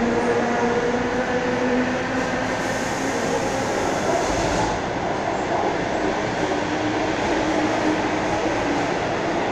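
Electric commuter train (elektrichka) standing at a station, heard from inside the carriage: a steady rumble of running equipment, with a low hum that slowly drifts in pitch.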